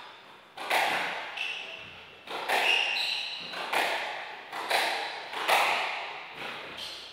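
Squash rally: the ball cracks off the rackets and the court walls about once a second, each hit echoing in the enclosed court, with short high squeaks from the players' shoes on the wooden floor.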